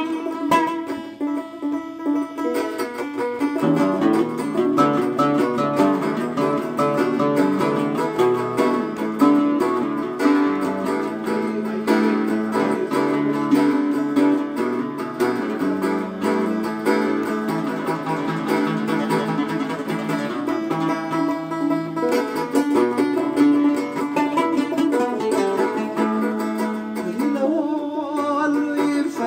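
Nubian tanbour (lyre) and oud playing together, plucked strings carrying a lively melody, with lower notes joining about four seconds in.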